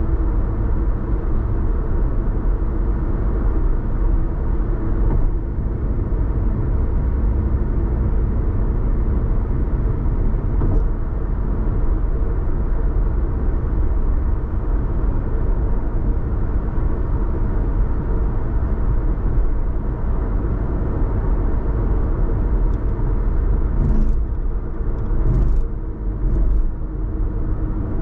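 A car being driven: a steady low rumble of road, tyre and engine noise with a faint steady hum. A few short sharp clicks come near the end.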